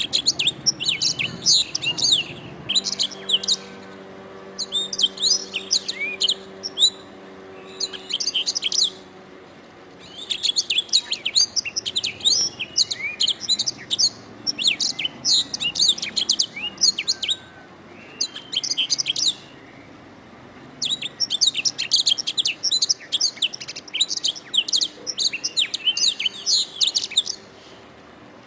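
Canary singing rapid, high-pitched trilling phrases in bursts of a few seconds, with short pauses between them.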